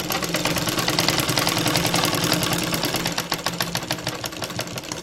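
Belt-driven sewing machine stitching at speed, a fast, even clicking rhythm that slows and stops near the end. This is the normal stitching sound of a machine whose bobbin thread is correctly seated in both slots of the bobbin case.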